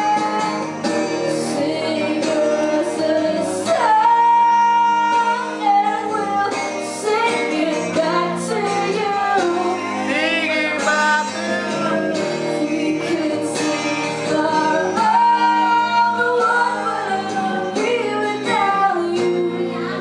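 A young woman singing live into a microphone, with guitar accompaniment. The melody runs on without a break.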